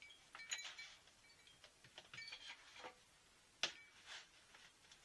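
Faint clinks and light knocks of small objects being moved about, with one sharper knock about three and a half seconds in.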